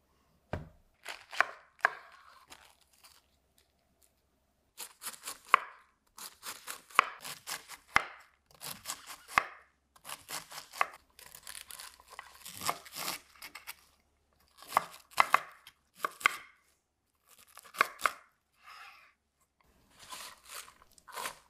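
Chef's knife slicing a head of green cabbage thinly on a wooden cutting board: crisp cuts through the leaves, each stroke ending on the board, in runs of quick strokes broken by short pauses.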